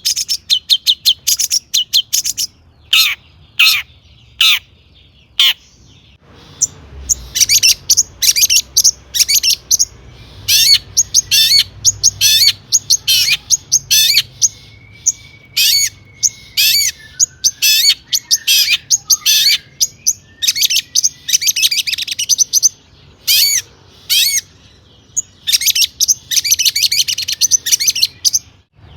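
Long-tailed shrike singing a loud, rapid song of short, sharp chattering notes in bursts with brief pauses, the kind of full song laced with mimicked calls of other birds that keepers use to set other shrikes singing.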